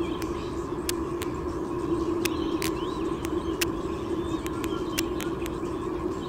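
Outdoor ambience picked up by a nest camera's microphone: a steady hum over a faint rumble, with faint high bird chirps and scattered sharp clicks.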